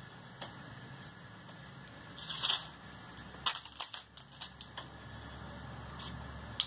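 Nylon beading thread drawn through seed beads with a short scratchy swish, followed by a quick irregular run of small light clicks and ticks from handling the beads and needle.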